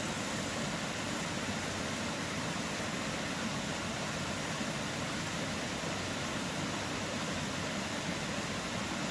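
Steady rushing of a shallow stream flowing over rocks, an even noise with no breaks.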